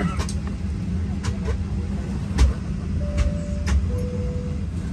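Airliner cabin noise inside a Boeing 737-800 on the ground: a steady low hum with scattered sharp clicks and knocks, and two faint short tones in the second half.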